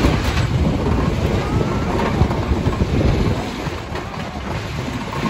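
Texas Stingray wooden roller coaster train rumbling and clattering along its wooden track at speed, mixed with heavy wind rush on the camera microphone. The noise eases a little about four seconds in, then picks up again.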